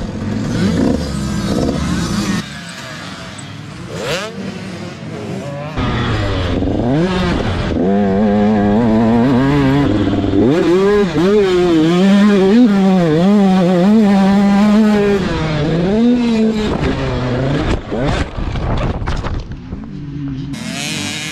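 Dirt bike engine heard from a camera on the bike, revving up and falling back again and again as the rider works the throttle around the motocross track. Near the end the engine drops off, followed by a few sharp knocks.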